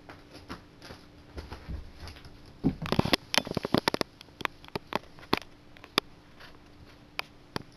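Cat eating from a bowl: a dense flurry of sharp clicks and crunches about three seconds in, then single crunches at irregular intervals, about half a second apart. Softer scattered taps come before.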